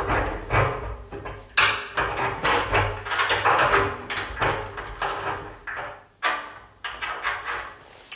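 Adjustable spanner working a new radiator valve insert tight into the radiator: irregular metallic scrapes, clicks and knocks as the spanner turns and is reset on the fitting.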